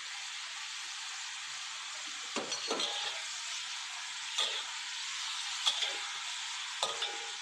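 Whole pigeons sizzling in a wok in soy sauce and wine, with a metal spatula scraping and knocking against the wok repeatedly as the birds are turned.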